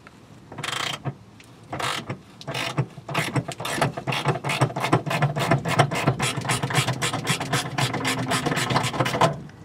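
Hand ratchet with a 10 mm socket clicking as it backs out a rusted bolt. The first few strokes are short and spaced apart. From about three seconds in, the clicking turns fast and even, about six clicks a second, as the bolt runs out freely.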